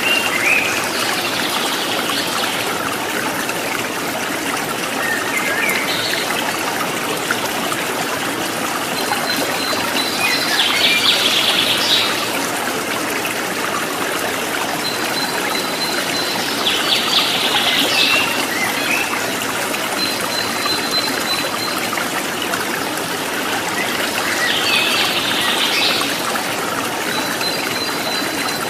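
Steady rush of a flowing stream with birds chirping over it; a short buzzy trill recurs every six or seven seconds.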